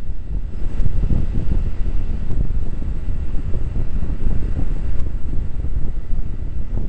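Wind buffeting the microphone on a motorcycle riding at highway speed: a loud, gusting low rumble.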